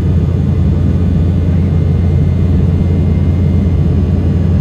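Cabin noise inside an Embraer 195 jet airliner: a steady low rumble of the turbofan engines and airflow, even and unbroken.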